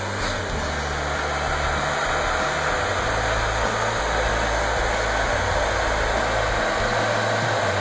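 Chevrolet Astro van engine idling steadily, with the hood up.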